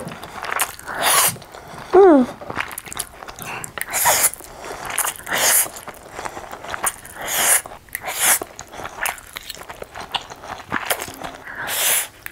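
A person slurping forkfuls of Korean spicy instant noodles: a string of short, wet sucking slurps about a second apart, with chewing between them. About two seconds in, a brief falling hum.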